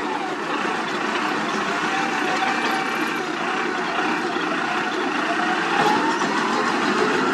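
Heavy diesel earthmoving machinery running steadily, with a faint whine that slides down in pitch at the start and rises again over the last few seconds.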